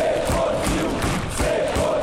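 Football supporters in the stand chanting in unison, a sung chant repeated in short phrases over the noise of the crowd, with regular low thumps beneath it. The sound is heard through a phone's microphone.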